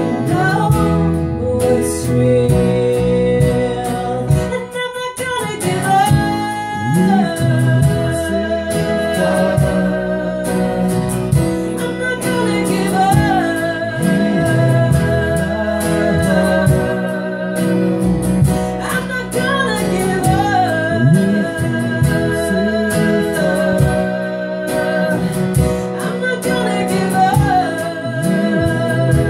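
A woman singing live into a microphone while accompanying herself on an electronic keyboard, a slow song with long held notes sung with vibrato.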